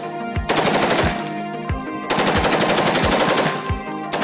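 M16-pattern rifle firing on full auto in two bursts: a short one about half a second in and a longer one of about a second and a half from two seconds in. Background music with a steady drum beat runs underneath.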